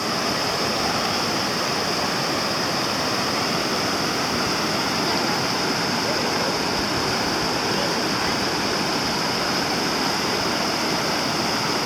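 A large waterfall's steady, unbroken rush of falling water.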